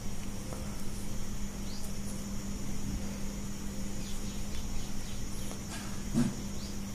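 Background room noise: a steady low hum and a steady high whine, with a few faint short high chirps scattered through it.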